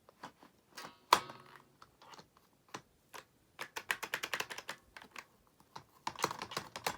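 Plastic toy car and play-set pieces clicking and clattering as they are handled: a sharp knock about a second in, then quick runs of small clicks.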